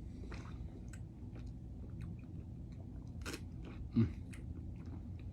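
Mouth sounds of sipping and swishing a neat whiskey: small wet clicks and smacks of the lips and tongue, with a short low thump about four seconds in.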